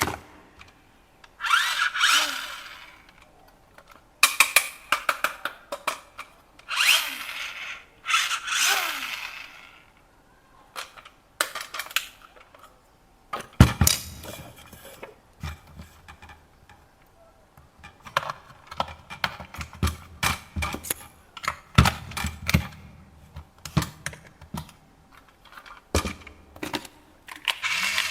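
Packaging and hard plastic toy parts being handled: several short bursts of rustling, then a long run of irregular clicks and knocks.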